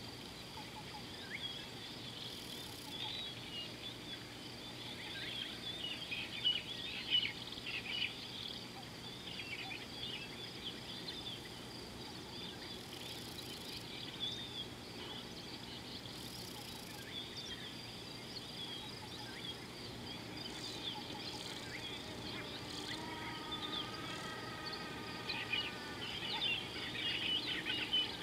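Wild daytime ambience: a steady high-pitched insect drone with many bird chirps and calls over it, busiest at the start and in the last few seconds. A longer, lower call with a buzzy tone comes in about four-fifths of the way through.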